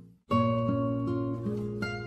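Background guitar music, single notes picked one after another; it drops out for a moment just after the start, then the guitar comes back in.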